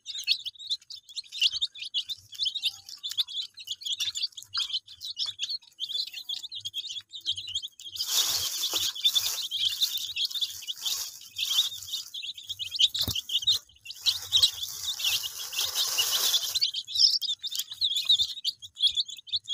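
A crowd of desi chicks peeping nonstop, many high chirps overlapping. From about 8 to 16 seconds in, a stretch of rustling noise rises under the peeping, with a single sharp click near the middle of it.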